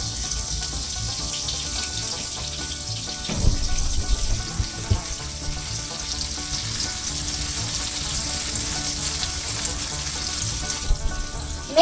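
Morel mushrooms sizzling steadily in melted butter in a frying pan, with a fork knocking and scraping against the pan as it moves them, loudest about three to five seconds in.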